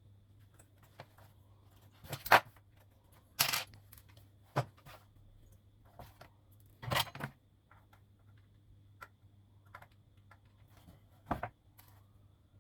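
Tools and small parts handled on a workbench: a few scattered sharp clicks and clinks and two short scraping rustles, over a faint steady low hum.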